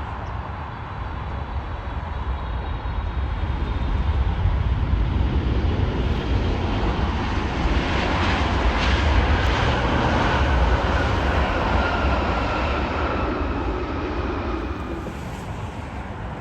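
Jet airliner passing by: its engine noise swells over several seconds, is loudest around the middle and then fades away, with a whine that falls in pitch as it goes past.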